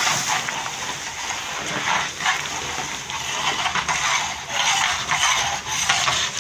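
Milk cooking down into khoya in a large pan over a high fire: a steady sizzling and bubbling with irregular surges.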